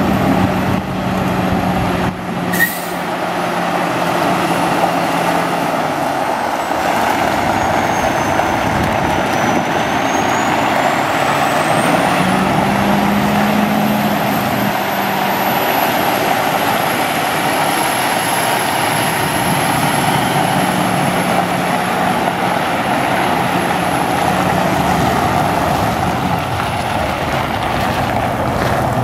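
International 8600 water truck's Cummins ISM diesel engine running, under a steady rushing noise, with a short sharp hiss or click about two and a half seconds in.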